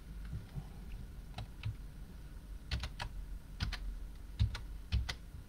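Computer keyboard keys clicking in short, irregular groups, a few light taps at first and quicker, stronger clusters in the second half.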